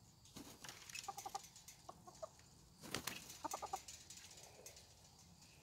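Chickens clucking in three quick runs of short notes, with scratchy rustling noises in between, the loudest about three seconds in.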